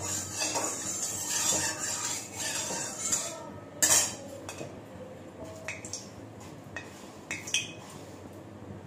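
A spatula scrapes and stirs oil around an aluminium kadai, then is knocked down into the pan with a loud clack about four seconds in. A few light clinks follow.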